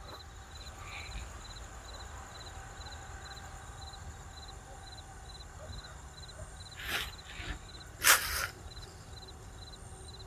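A cricket chirping steadily, high-pitched, about twice a second, over a faint steady insect hum. A few short rustles come near the end, the loudest about eight seconds in.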